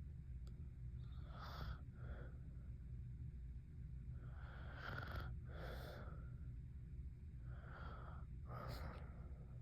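A sleeping woman's noisy breathing with light snoring: three breaths about three seconds apart, each a rasping in-breath followed by an out-breath.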